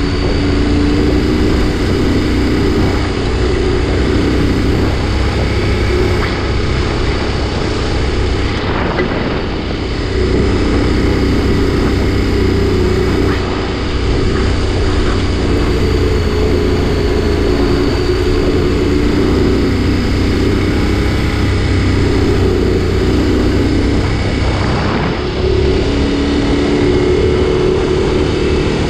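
Adventure motorcycle engine running steadily on a dirt road, with wind and road noise on the camera microphone. The engine note dips briefly a few times as the throttle eases.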